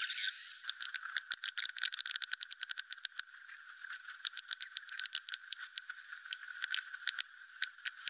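Swiftlet roosting-call ('suara inap') lure recording, the kind played in swiftlet houses to draw birds in to roost: swiftlets clicking in rapid, irregular runs, thickest in the first half, with one short high chirp just after the middle.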